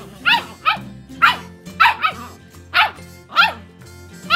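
A small dog barking at a cat in play: short, sharp barks repeated about twice a second, roughly nine in all, over background music.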